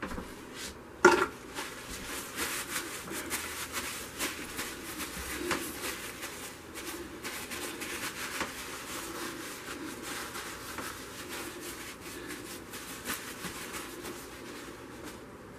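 A sharp knock about a second in, then a crumpled paper towel crinkling and rubbing as it dabs and wipes wet acrylic paint from the centre of a canvas, the rustling dying down near the end.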